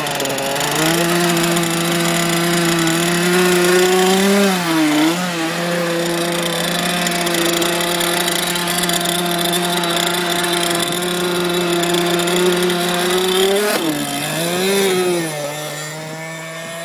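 Small two-stroke gasoline engine of a radio-controlled hydroplane boat running steadily through its tuned exhaust pipe. Its pitch briefly dips and climbs back about five seconds in and again near the end, then the sound fades as the boat runs away.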